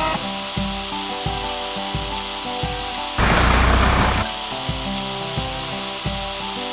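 Background cartoon music with a steady beat. About three seconds in, a noisy power-tool burst lasting about a second: the sound effect of the excavator's hydraulic breaker hammering into the paving.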